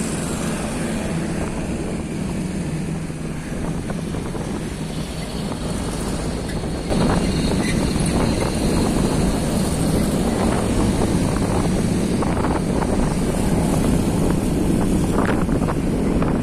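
A moving vehicle's engine and road noise, steady and low. It gets louder about seven seconds in.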